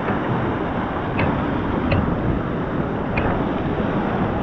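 Strong surf breaking on a rocky reef shore and washing across the rocks, a steady rushing with low rumble.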